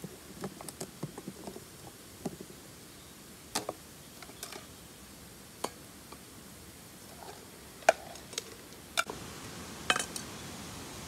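Irregular light clicks and knocks of camping gear being handled, busier in the first couple of seconds, with a few sharper clacks in the second half.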